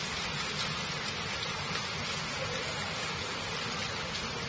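Heavy rain falling steadily on floodwater, a dense, even hiss.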